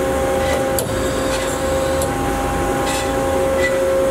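Hyd-Mech S-20A horizontal band saw running: a steady machine hum of several even tones over a low rumble, with a few faint ticks.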